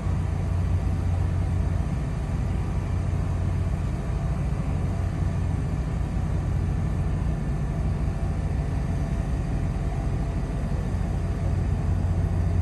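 Steady low rumble and hiss of a vehicle in motion.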